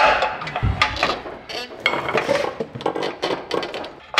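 Irregular metallic clinks and knocks of hand tools and a loosened bolt against the underside of a truck, with a dull low thump just under a second in.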